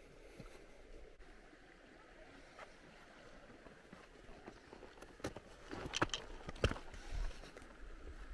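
Footsteps and knocks on a concrete dam walkway: faint low wind rumble on the microphone, then a few sharp knocks about five to seven seconds in.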